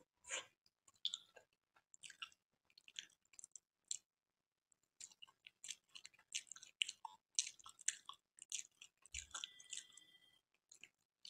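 A person chewing a soft, syrup-soaked gulab jamun, with wet mouth smacks and clicks in scattered bursts. The smacks pause about four seconds in, then come thicker. A soft thump comes about nine seconds in.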